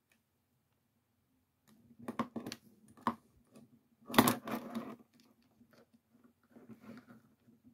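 Small flat screwdriver prying and scraping in the seam of a plastic folding car key fob, giving a run of clicks and scrapes with one sharp plastic click about four seconds in, then softer handling.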